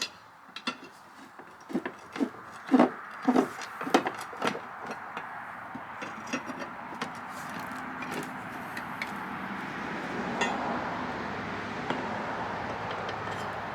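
Knocks and clatter of old wooden carriage timbers and metal parts being handled and pried apart, the loudest strikes about three to four seconds in. After that a steady rushing noise slowly builds.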